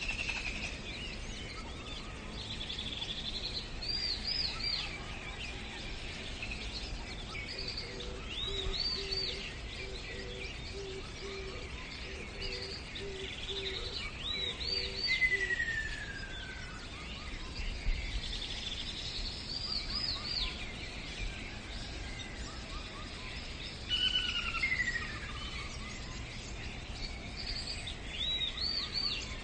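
Birdsong over steady background noise: a bird repeats short groups of quick, high, arched chirps every few seconds, with a few falling whistles in between. A faint steady low hum runs for several seconds in the middle.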